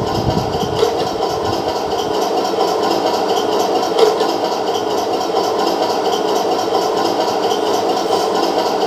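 Simulated tank engine idling, played by the sound unit of a 1/16 scale RC Tiger 1 tank through its onboard speaker. The deeper rumble drops away about two seconds in, leaving a steady idle.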